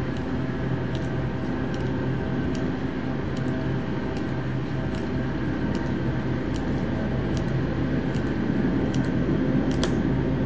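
Slow marching footsteps of ceremonial guards, a sharp click of their metal-tapped heels about every 0.8 s, over a steady low mechanical drone that grows a little louder near the end.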